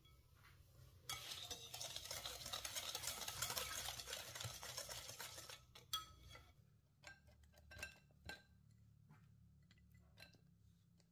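A kitchen utensil beating rapidly in a mixing bowl for about five seconds, a quick run of scraping strokes against the bowl. This gives way to a few separate taps and clinks.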